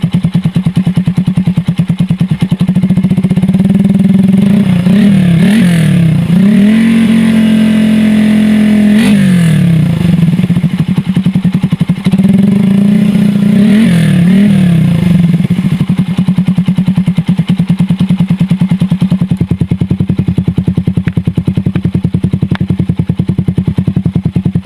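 Suzuki Satria F150 fuel-injected single-cylinder engine running through a 3Tech Ronin Katana full-system aftermarket exhaust set to its silent mode. It idles, is blipped several times about four seconds in, held at higher revs for a couple of seconds and let drop, blipped again around fourteen seconds, then settles back to a steady idle.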